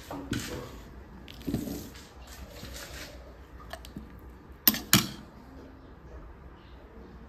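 A metal spoon knocks twice in quick succession against a ceramic soup bowl, a little past halfway, amid soft handling noise.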